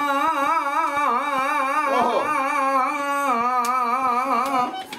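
A man's voice holds one long sung note with an even wavering vibrato in a devotional bhajan, over harmonium and light regular percussion ticks. The held note fades out near the end.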